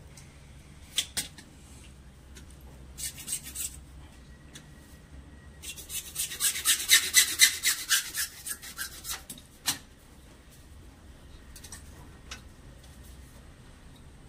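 A hand tool rasping on a CPVC plastic pipe in a run of quick strokes, about four to five a second, starting about six seconds in and lasting some three seconds. A shorter scrape comes earlier, and a few sharp clicks fall before and after the strokes.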